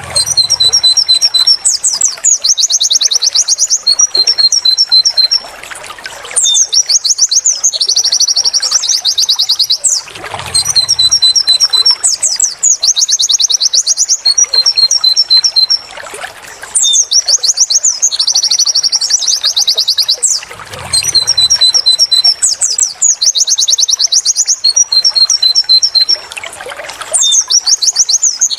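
White-eye (pleci) singing its high, rapid 'wit wit tulit tulit' song: quick trills and runs of short repeated notes, the same sequence of phrases coming round again about every ten seconds.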